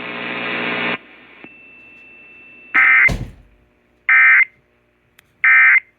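Emergency Alert System end-of-message signal: three short, loud, screeching digital data bursts about a second and a third apart, which close out the flash flood warning. Before them, a buzzing hum cuts off about a second in and a faint steady high tone follows, and a brief falling sweep comes right after the first burst.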